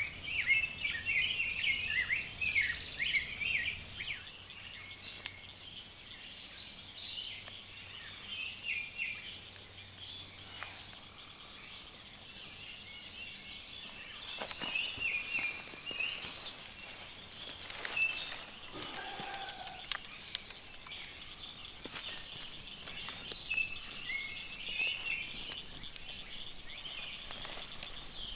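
Several songbirds singing and calling over one another: a dense run of short, quick warbling phrases, thickest in the first few seconds and again in the middle and near the end, with a few faint clicks.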